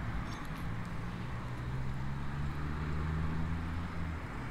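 Low, steady hum of a vehicle engine running, which drops away near the end.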